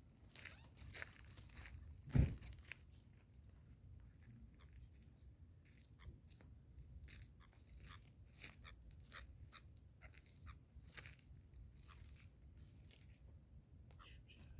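Irregular faint crunching and crackling, with one sharp thump about two seconds in.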